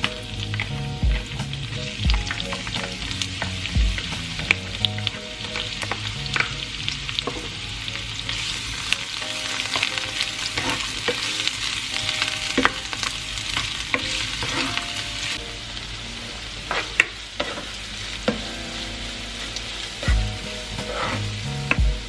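Chopped garlic and onion sizzling in hot oil in a nonstick frying pan, stirred with a spatula that gives short scrapes and taps against the pan. The sizzle grows louder through the middle.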